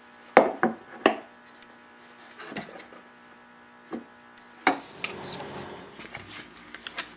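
Metal clamp and tool hardware knocking and clicking against a wooden drawer. There are three sharp knocks in the first second, then single knocks spaced out over the next few seconds. About five seconds in come rubbing and rustling, with more clicks near the end, over a faint steady hum.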